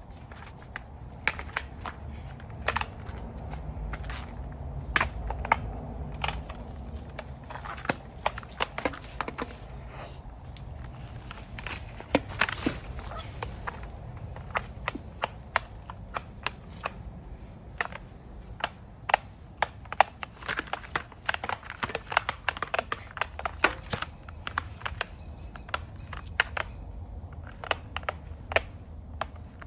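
Irregular sharp clicks and knocks, scattered through the whole stretch over a low rumble: a serval scuffling with a mop, the mop knocking and scraping as the cat grabs at it.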